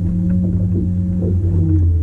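Boat motor running with a steady low hum.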